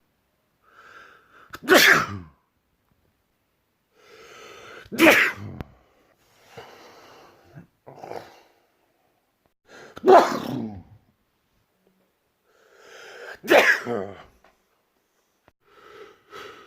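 A person sneezing loudly four times, a few seconds apart. Each sneeze comes after a short drawn-in build-up breath and is followed by a brief exhale.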